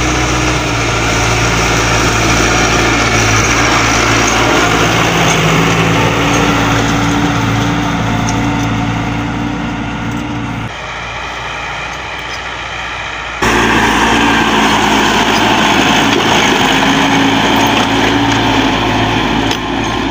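Four-wheel-drive tractor's diesel engine running steadily under load while it pulls a disc harrow through a ploughed field. The sound changes abruptly twice, going quieter for a few seconds in the middle before the engine comes back loud.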